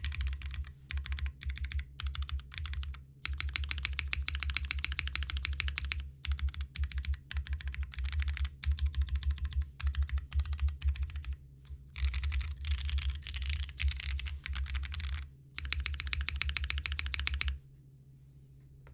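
Martingale aluminium-cased custom mechanical keyboard with lubed Cherry MX Black linear switches and GMK keycaps being typed on, fast runs of keystrokes in bursts with short pauses. The typing stops about a second before the end.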